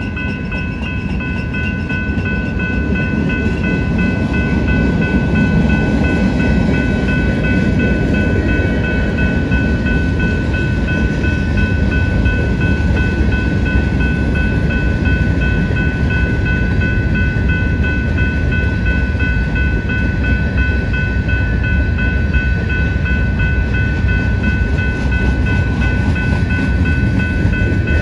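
Freight train's cars rolling past: a steady low rumble of wheels on rail that builds over the first few seconds and holds. Several steady high-pitched tones ring over it.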